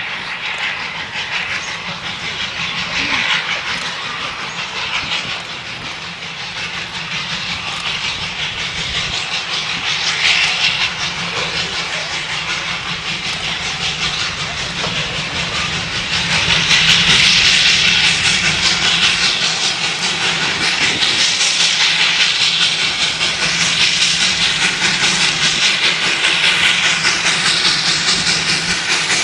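Two Victorian Railways J class 2-8-0 steam locomotives, J541 leading, double-heading a passenger train: exhaust chuffing and steam hissing, getting louder about 17 seconds in as the engines draw near.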